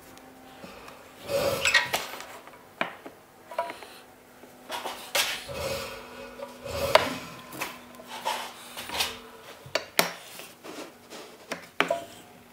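A metal flip stop being set on a saw-stop fence track and the timber shelf strip shifted against it: a string of separate clicks, knocks and scraping rubs of metal and wood, with a sharp click about ten seconds in.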